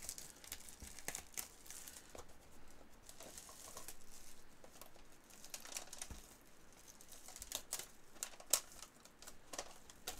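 Trading card packaging being ripped open by hand: crinkling and tearing of the wrapper, with irregular sharp crackles.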